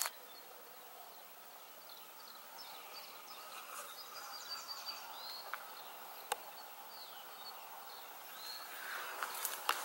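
Faint outdoor ambience with small birds chirping: short high calls scattered from about two seconds in. A single sharp click comes a little after six seconds.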